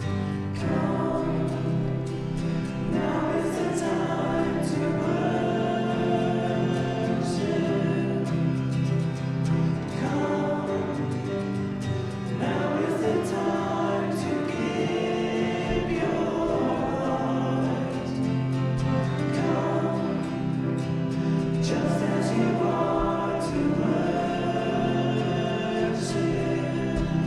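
Congregational hymn: many voices singing together in long held phrases, accompanied by guitar.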